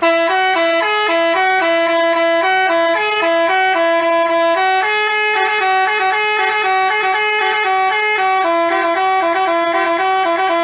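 Basuri telolet bus horn playing a quick melody, its electric horn notes stepping from pitch to pitch with two tones sounding together. It starts suddenly and plays without a break.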